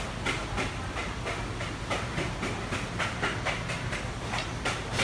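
Salmon fillets being handled and cut with a long knife on a wooden cutting board: a run of short, irregular taps and scrapes over a steady low hum.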